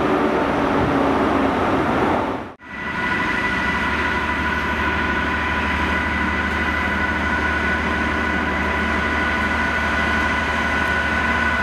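Class 43 HST power car running past, then, after an abrupt cut, a Class 66 diesel locomotive hauling freight. Its two-stroke V12 engine makes a low drone under a steady high whine as it moves through.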